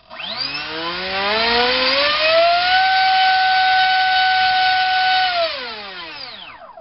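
Turnigy SK3 2839 2700kV brushless outrunner motor driving an APC 6x4 electric propeller on a thrust stand: the whine rises in pitch as the throttle comes up over about three seconds, holds steady at full throttle for about two and a half seconds, then falls away as the motor spins down.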